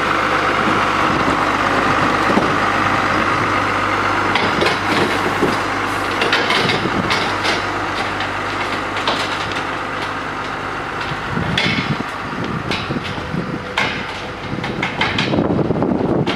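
A rail-mounted truck's engine running steadily, with sharp metallic knocks and clanks scattered through it. The engine hum stops about eleven seconds in, and the knocks carry on after it.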